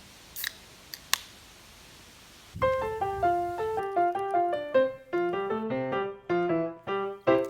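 Background piano music that comes in about two and a half seconds in, a run of quick notes over lower bass notes. Before it there is only faint hiss with a few sharp clicks.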